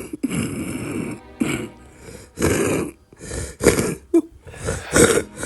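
A person coughing in a rapid series of harsh, hacking coughs, about eight in a row, starting suddenly.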